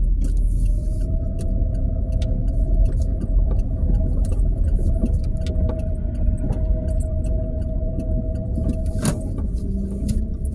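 Car driving slowly, heard from inside the cabin: a steady low road-and-engine rumble with a constant hum and scattered small clicks and rattles, one sharper click about nine seconds in.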